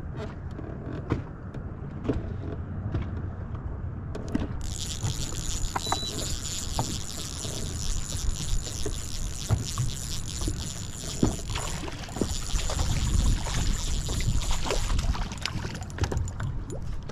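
Water lapping against a fishing boat's hull, with small scattered knocks and ticks. About four and a half seconds in, a steady high-pitched whine with hiss starts abruptly; it stops about ten seconds later.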